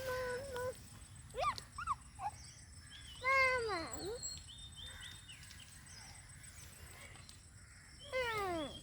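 A dog whining in a series of drawn-out cries, the longer ones sliding down in pitch.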